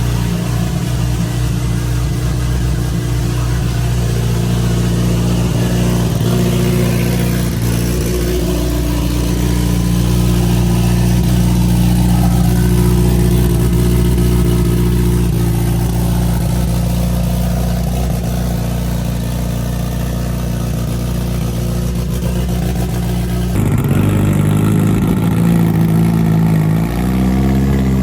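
A vehicle engine running steadily with a low, even drone. About 23 seconds in the sound changes abruptly to another engine note whose pitch rises and falls.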